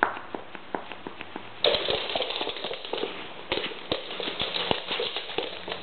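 Dogs at play on a hard floor: quick clicks and scuffles of claws and paws. About a second and a half in it becomes louder and denser.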